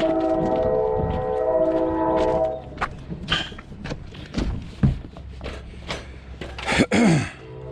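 A horn holds a steady chord of several tones, then cuts off about two and a half seconds in. Scattered metallic knocks and clanks follow, and a loud falling screech comes near the end.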